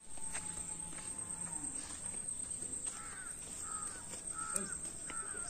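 A bird calling repeatedly from about three seconds in, a short call roughly every second, over a steady high-pitched whine.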